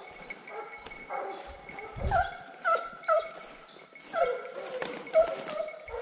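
Pack of Fauve de Bretagne scent hounds giving tongue on a scent, short overlapping cries coming in clusters about every half second to second.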